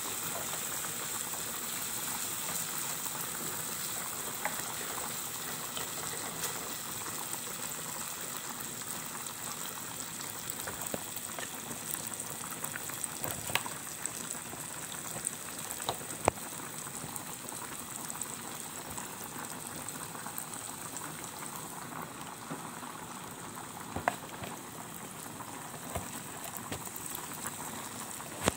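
A pot boiling on a gas stove with a steady bubbling hiss, and a few light clicks over it.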